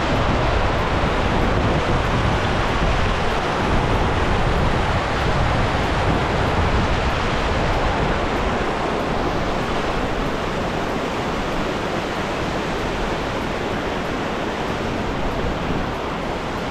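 Steady, loud rushing of a mountain waterfall, an even wash of falling water with no break.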